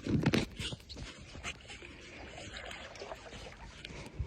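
A few knocks and bumps on a kayak in the first half second, then quiet water sounds of paddling: small splashes and trickles of water off the paddle.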